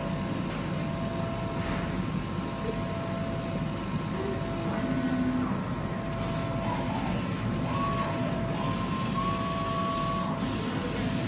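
KASU flatbed laser cutter running: a steady machine hum with a constant whine, and in the second half short tones that step up and down in pitch as the gantry and laser head travel over the fabric.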